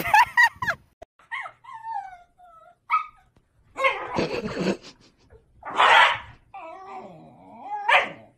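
Two Shiba Inu dogs play-fighting, giving a string of yips, whines and short barks in bursts about a second apart. Some of the whines glide up and down in pitch.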